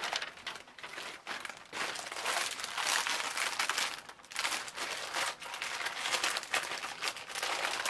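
Clear plastic packets of scrapbook paper crinkling and rustling as they are handled and sorted through, in irregular bursts that grow busier about two seconds in, with a brief lull around four seconds.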